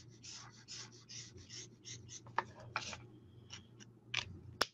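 Alcohol-ink marker (Stampin' Blends) stroked back and forth across cardstock: short scratchy strokes, about two or three a second, that thin out after about three seconds. A single sharp click near the end.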